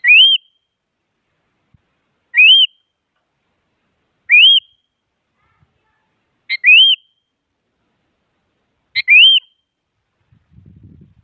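Sooty-headed bulbul (kutilang) giving a short rising whistled call, repeated five times about every two seconds. Some of the calls are opened by a brief sharp note.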